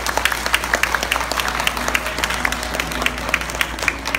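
Audience applauding, a dense patter of hand claps with a few sharp claps close to the microphone.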